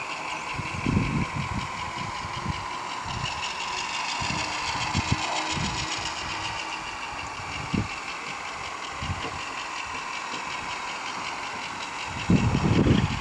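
DCC sound decoder in a model diesel locomotive playing a diesel engine running, through the model's small speaker, as a steady high tone with a fast even beat. Low thumps come and go, louder near the end.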